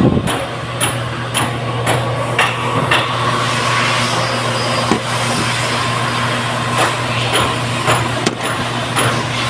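A high-frequency TIG welding arc on an aluminium Ford Triton cylinder head, buzzing steadily. Sharp clicks come about every half second in the first few seconds and again near the end.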